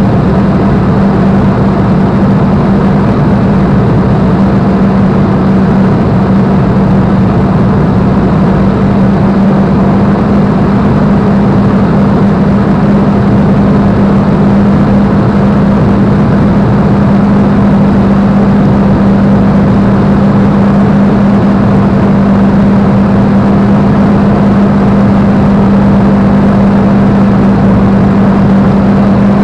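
Spitfire's Rolls-Royce Merlin V12 engine droning steadily in cruise flight, heard from inside the cockpit: a strong, even low hum over a dense roar of engine and airflow.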